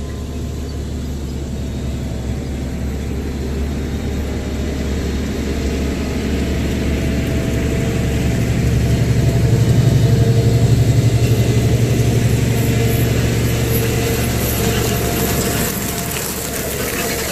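Fendt 1038 tractor's diesel engine running steadily, growing louder about halfway through and easing back near the end.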